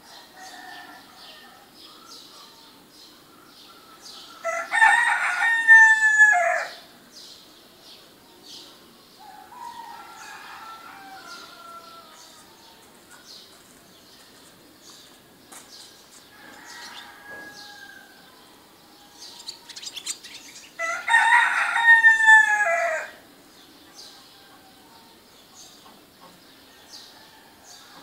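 A rooster crowing twice, each crow about two seconds long and falling in pitch at the end, the two about sixteen seconds apart. Between the crows, small birds chirp faintly and steadily, with a few quieter calls.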